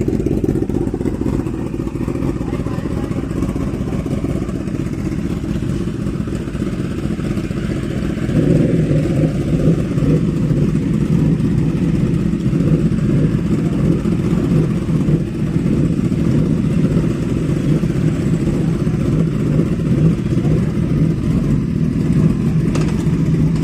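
Motorcycle engine running steadily, getting louder about eight seconds in.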